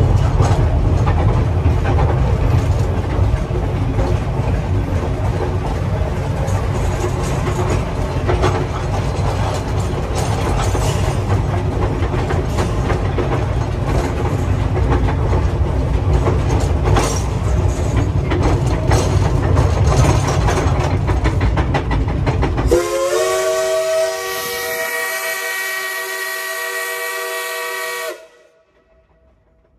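Train riding noise heard from inside a passenger car: a steady low rumble of the wheels on the track, with scattered clicks and clanks. About 23 seconds in, this gives way to the steam whistle of Shay No. 4, a geared steam locomotive. The whistle is blown once for about five seconds, its pitch settling after a slight rise, and then cuts off sharply.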